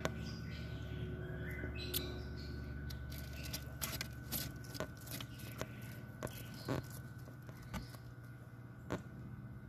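Bearded dragon biting and chewing fresh pechay leaves: irregular crisp crunches and clicks, most frequent in the middle, over a steady low hum.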